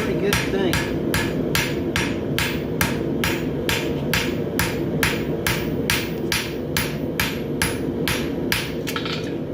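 Farrier's hammer striking a white-hot steel bar shoe on the anvil in a steady rhythm of about two and a half blows a second, forge-welding the shoe's ends together. The blows stop shortly before the end, over a steady low rushing noise.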